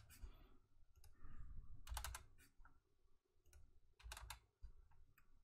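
Faint computer keyboard and mouse clicks. There is a quick run of keystrokes about two seconds in and another about four seconds in, with scattered single clicks between.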